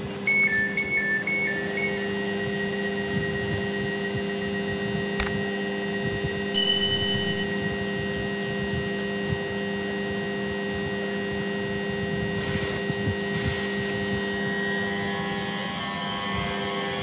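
Class 345 electric multiple unit at a platform: a two-tone door-closing alarm beeps in the first couple of seconds, then the train's steady electrical hum holds, with two short hisses near the middle. Near the end a rising whine from the traction equipment sets in as the train starts to pull away.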